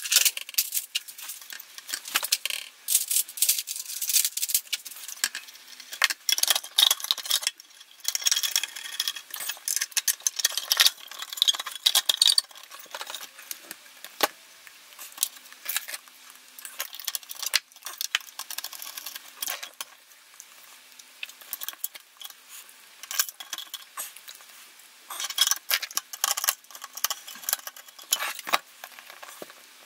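Irregular clicks, scrapes and rattles of small metal parts being handled: the circuit boards, aluminium shield covers and screws of an RV671 aircraft navigation receiver being worked back into its metal case.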